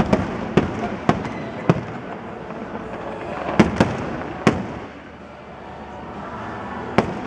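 Aerial firework shells bursting: sharp bangs about half a second apart in the first two seconds, another cluster around four seconds in, and one more near the end, over a continuous crackle and hiss from the display. The noise dips briefly a little past the middle.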